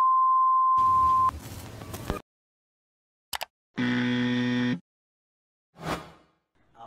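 Outro sound effects: a loud, steady test-tone beep with a hiss of TV static, the beep cutting off after about a second and the static soon after. Then a tiny click, a one-second electronic buzz about four seconds in, and a short whoosh near the end.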